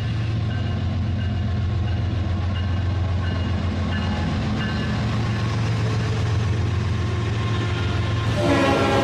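Rail King toy train running along its track with a steady low motor hum that grows slightly louder as it comes closer. Near the end a louder run of musical tones sets in.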